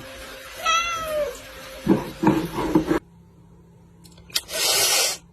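A cat meows once, its pitch falling, followed by a few loud scuffling or knocking noises. Near the end comes a short burst of hissing noise.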